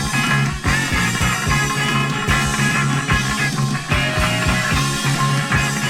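Post-punk rock band playing an instrumental passage: drums keep a steady beat under bass and guitar, with no singing.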